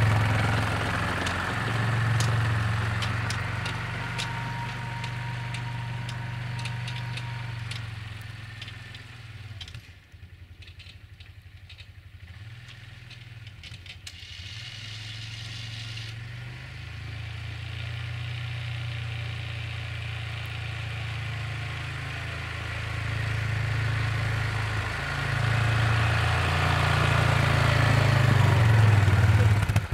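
Yamaha Kodiak 450 ATV's single-cylinder engine running while plowing snow. It is loud close by, fades to faint as the machine moves off about a third of the way in, then grows loud again as it comes back near the end.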